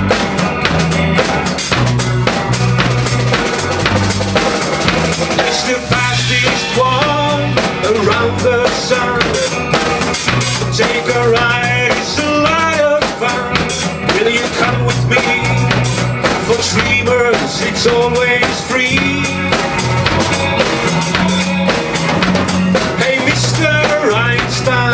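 Live rock trio playing: a Ludwig drum kit with bass drum, snare and rimshots, electric bass and electric guitar. About six seconds in, a lead melody that bends and wavers in pitch comes in over the beat.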